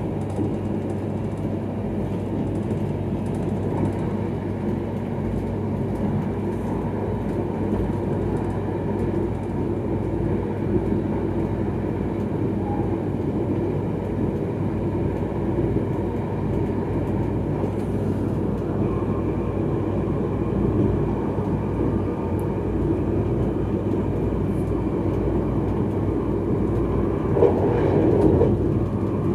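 X31 electric multiple unit running at speed, heard from its rear cab: a steady rumble of wheels on rails with a low hum. About two seconds before the end comes a brief louder rush as the train passes over a level crossing.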